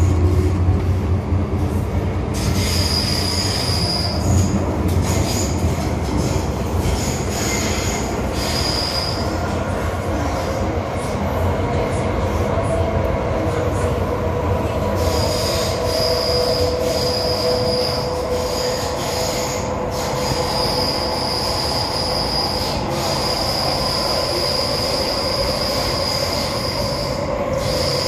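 Interior running noise of an MTR M-Train electric multiple unit moving through a tunnel: a steady rumble with high-pitched wheel squeal that comes and goes, from about two to nine seconds in and again through most of the second half.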